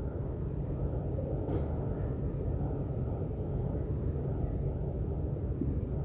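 Steady low background rumble, with a faint continuous high-pitched pulsing whine over it and a light click about a second and a half in.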